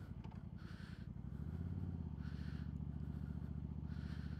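Suzuki Marauder cruiser motorcycle engine running at low revs with a steady low pulsing beat, growing louder about one and a half seconds in as the throttle opens.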